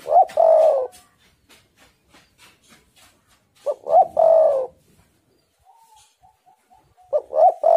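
Spotted dove cooing: three song phrases about three and a half seconds apart, each a couple of short notes ending in a longer falling coo. Faint quick ticks and soft stuttering notes come between the phrases.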